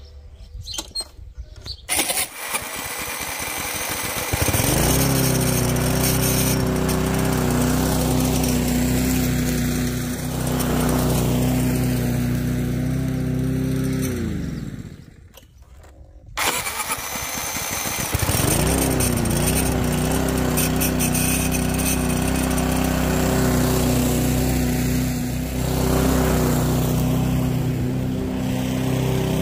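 Petrol lawn mower engine started with a battery-powered electric starter: a few seconds of cranking, then it catches and runs steadily. About ten seconds later it is shut off and winds down. After a brief pause it is cranked and started again and runs on steadily.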